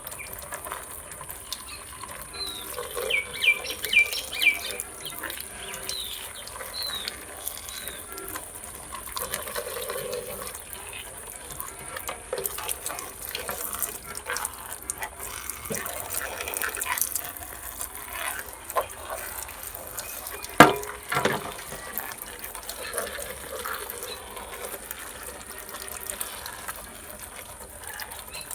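Water running and splashing as a toy is washed, with small clicks and knocks of handling throughout and one sharp knock about two-thirds of the way through. A few short high chirps come early on.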